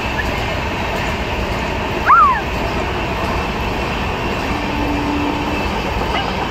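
Passenger train coaches running on the track with a steady rumble. About two seconds in there is a short, loud squeal that rises and then falls.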